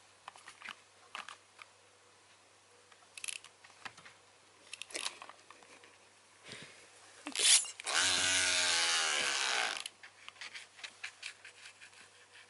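A clockwork wind-up toy mouse whirring for about two seconds, starting and stopping abruptly, among scattered light clicks and rustles as a kitten paws at the toy.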